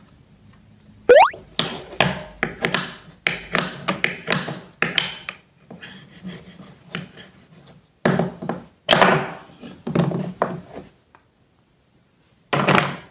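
Toy knife cutting wooden play food: a quick, irregular run of wooden clacks and knocks, with softer scraping between them. A short rising whistle-like glide comes about a second in, and the sound stops briefly before one last knock near the end.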